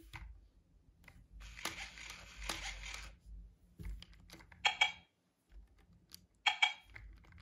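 Fingers rubbing, tapping and pressing the plastic shell of a Hasbro I-Dog robot dog toy: a longer scrape about a second and a half in, then scattered clicks and short scrapes as the button on its back is pressed.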